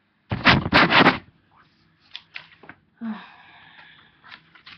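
Close handling of a vinyl LP with its sleeve and cardboard jacket: a burst of three loud rustling knocks about half a second in, then scattered clicks and a short scraping rustle about three seconds in.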